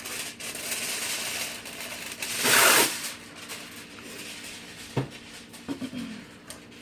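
Aluminum foil being pulled off the roll and crinkled, with a loud tearing rip about two and a half seconds in as a sheet is torn off. A single sharp knock follows about five seconds in.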